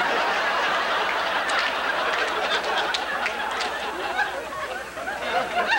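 Audience laughing, with scattered clapping, dying down near the end.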